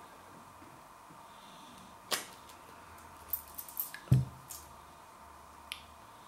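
A few short clicks of a plastic squeeze bottle of Sriracha chilli sauce being handled and squeezed, then a dull thump about four seconds in as the bottle is set down on the worktop.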